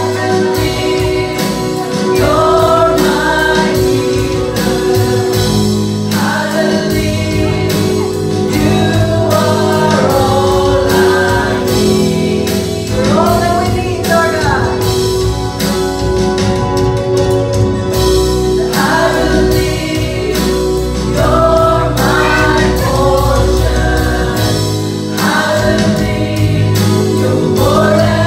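Gospel worship song performed live: a group of voices singing together over a band with sustained keyboard tones and a steady drum beat.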